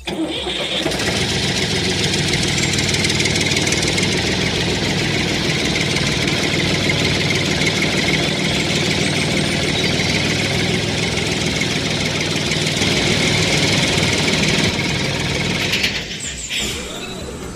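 A small engine or motor running steadily with a low hum, starting just after the beginning and stopping about 16 seconds in.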